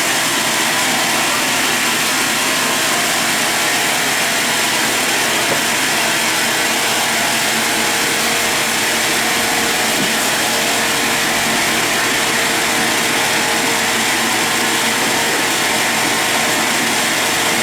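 Sawmill machinery running steadily, a loud, even mechanical noise with no breaks.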